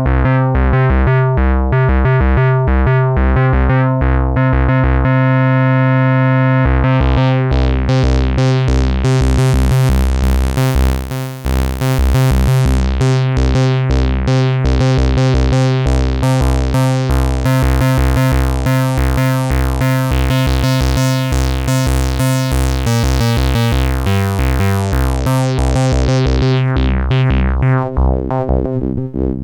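Behringer MS-1 analog monophonic synthesizer, a clone of the Roland SH-101, playing a fast repeating pattern of notes. Its tone grows steadily brighter from about seven seconds in and dulls again near the end.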